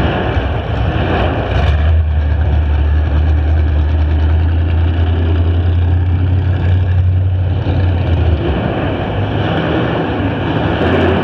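A limited-weld demolition derby car's engine running loud as the car drives out past. A deep, steady low tone comes in about two seconds in and fades away a few seconds before the end.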